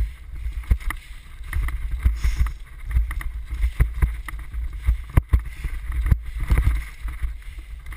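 Wind buffeting a helmet-mounted action camera's microphone in a loud, uneven rumble, with irregular knocks and rattles from moving fast over a rough dirt trail.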